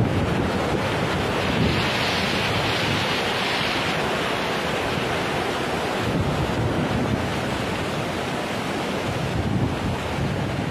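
Muddy flash-flood water rushing over a stone terrace wall, a steady dense rush, mixed with wind buffeting the microphone.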